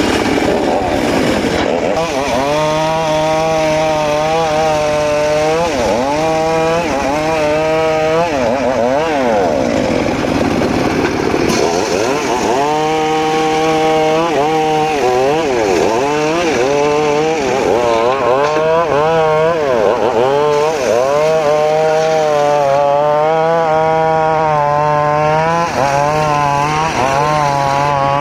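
Homemade circular saw cutting mahogany: a loud, steady machine whine that repeatedly dips in pitch and climbs back as the blade bites into the wood and is eased off.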